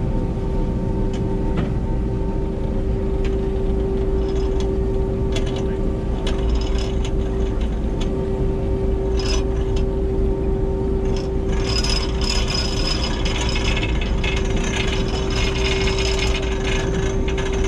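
Party boat's engine running steadily with a constant hum. About twelve seconds in, a rapid mechanical rattling and clicking joins it.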